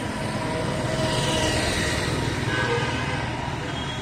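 Street traffic noise, with a vehicle passing close by, loudest between about one and two and a half seconds in.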